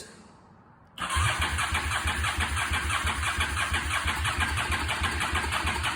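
Honda Shadow's electric starter cranking the V-twin engine. The rhythmic whirring starts about a second in and holds steady without the engine catching, after a new starter solenoid has been fitted.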